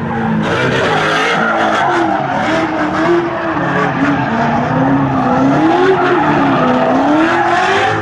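V8 muscle car doing a burnout: the engine held at high revs, its pitch rising and falling as the spinning rear tyres squeal.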